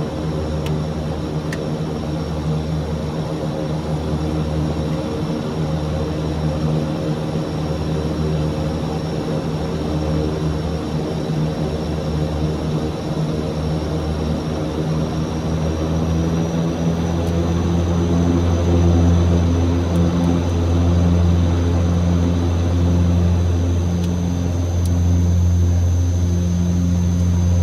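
Antonov An-26 twin turboprop engines running with a steady propeller drone. The low hum pulses at first, then about two thirds of the way in it steadies and grows louder.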